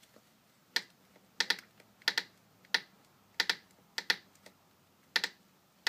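Sharp clicks from a Volkswagen Mk5 GTI's engine bay as the manifold is pulled back and forth by hand, about one every half to two-thirds of a second, several of them doubled. The source of the clicking is unknown, and the owner has ruled out the engine mounts.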